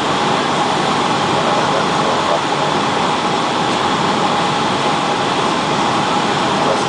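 Steady cabin noise of a Boeing 757 on approach, its turbofan engines and the air rushing past the fuselage making an even rushing sound, with a faint steady tone running through it.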